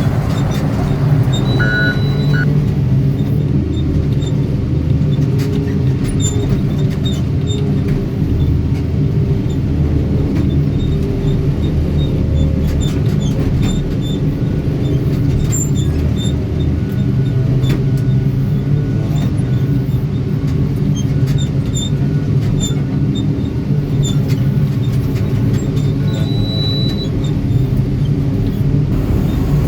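Heavy earthmoving machine's diesel engine running steadily under work, its low drone rising and dipping slightly, with faint clanks and clicks.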